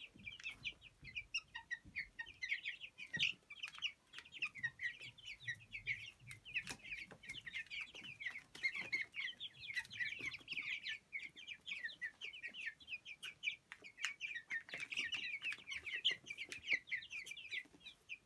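A flock of young broiler chickens, white broilers and Sasso, peeping constantly in short high chirps while eating from a feed dish, with scattered sharp clicks of pecking.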